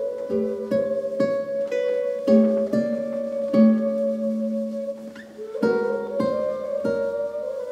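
Improvised duet of recorder and acoustic guitar: the recorder holds long, slightly wavering notes while the guitar plucks single notes and chords beneath it. The held note breaks off briefly about five seconds in before a new one begins.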